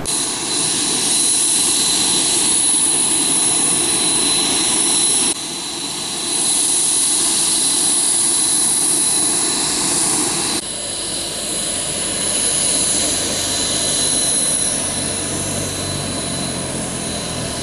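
Boeing jet's turbine running with a steady high whine over a rushing hiss. The sound shifts abruptly about five and about ten seconds in.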